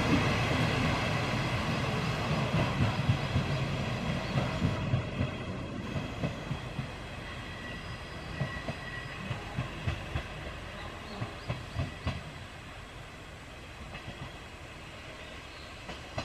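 JR Shikoku 1000 series single-car diesel railcar pulling away, its engine running and its wheels clacking over rail joints and points. The whole sound fades steadily as the railcar draws off.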